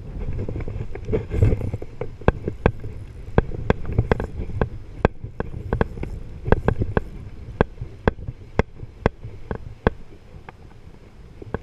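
Spinning reel giving sharp, irregular clicks, a few a second, while a hooked fish bends the rod, over steady wind and lapping water. The clicks thin out and stop near the end.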